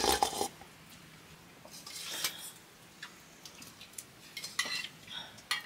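Eating utensils clinking and scraping against dishes during a meal, in short irregular clusters of clatter near the start, around two seconds in and around four and a half seconds in.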